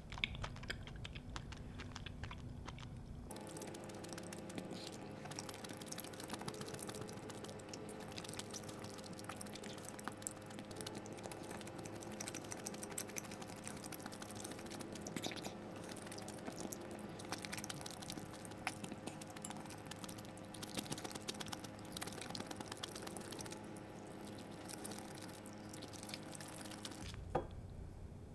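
Close-up eating sounds: chewing grilled beef intestines (gopchang and daechang), with many small clicks of wooden chopsticks against the dish. A faint steady hum sits underneath from about three seconds in until shortly before the end.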